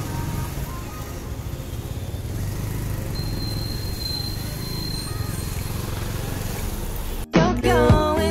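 A motorcycle running through city traffic, a steady low engine and road rumble. About seven seconds in it cuts off to pop music.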